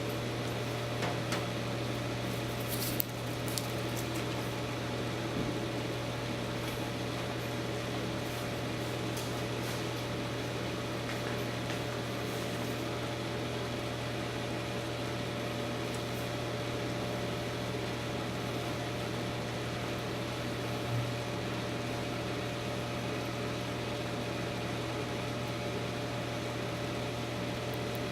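Microwave oven running: a steady low hum with a fainter steady whine above it, and a few small clicks about three seconds in.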